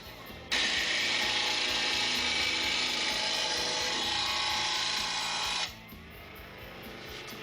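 Blade grinder grinding the edge of a steel lawn mower blade: a loud, steady grinding hiss from about half a second in until near the end. The grinder then runs on more quietly with the blade lifted off the wheel.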